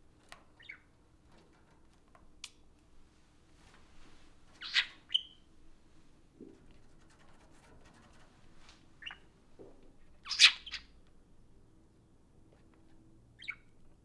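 Budgerigars giving short, sharp chirps now and then, the loudest about five seconds in and again about ten and a half seconds in.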